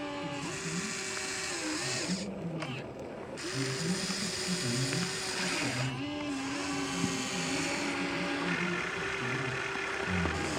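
Small electric motors of a toy RC excavator whining, the pitch gliding up and down as they speed up, slow and change direction while it digs.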